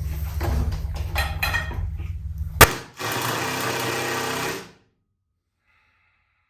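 Low rumbling handling noise with scattered knocks, then a sharp click and a small power tool, likely a cordless drill or driver, running steadily for under two seconds before stopping abruptly.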